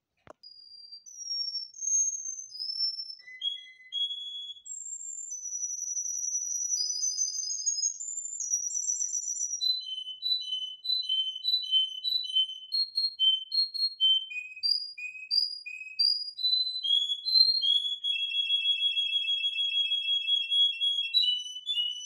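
Domestic canary singing: a long run of clear, high whistled phrases and trills that change every second or two, with a fast rolling trill near the end before the song stops abruptly. A brief click comes at the start.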